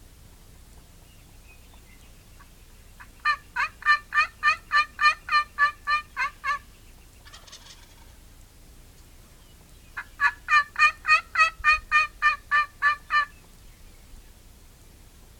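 Wild turkey calling: two runs of about a dozen quick, evenly spaced notes, each run lasting roughly three seconds, with a pause of about four seconds between them.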